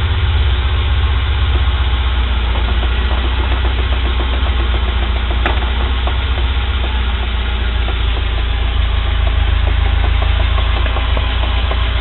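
UAZ Patriot engine running steadily at low speed, with a rapid run of light knocks from the driveshaft from about two seconds in until about eight seconds, and one sharper click midway. The knocking is the sign of play in a worn universal-joint cross on the driveshaft.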